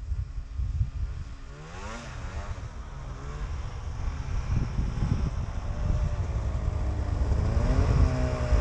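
Snowmobile engines: a steady low rumble, with an engine revving up and down about two seconds in and again near the end, growing louder as a second snowmobile comes close.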